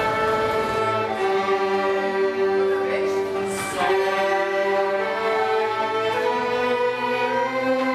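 An orchestra with bowed strings and clarinets plays slow, sustained chords, each held for a second or two before the next.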